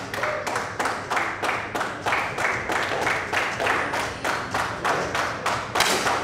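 Audience clapping in unison, a steady rhythm of about four claps a second.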